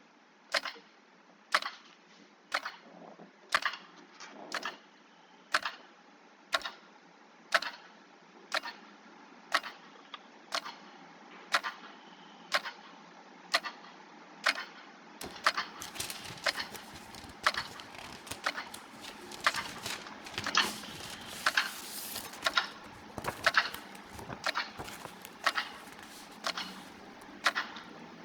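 Sharp clicks at an even pace of about one a second over a steady hiss. About halfway through, extra clicks fall in between the regular ones, the sound gets denser and a low rumble joins in.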